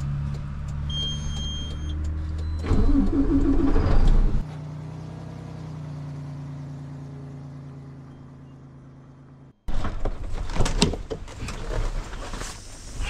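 International TranStar truck's diesel engine running at idle in the cab, louder for a moment, then cutting off suddenly at about four and a half seconds and leaving a fainter hum that fades away. After a short gap come scattered clicks, knocks and rustling in the cab.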